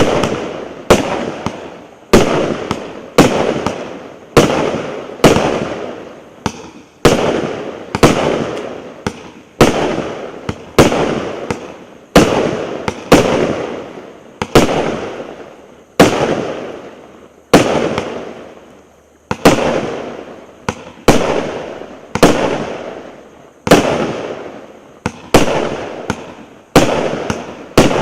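A 96-shot, 1.1-inch (28 mm) fireworks cake battery firing in sequence, about one shot a second, each a sharp report that fades away over about a second.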